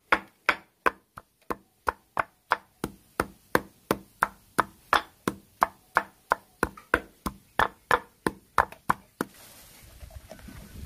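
Wooden pestle pounding sliced lemongrass in a wooden mortar: a steady rhythm of sharp strikes, about three a second. The pounding stops about nine seconds in.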